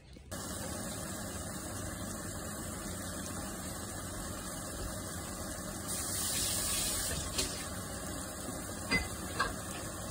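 Chopped beef tomatoes cooking in oil in a pan, giving a steady sizzling hiss that grows briefly louder partway through, with a few light clicks near the end.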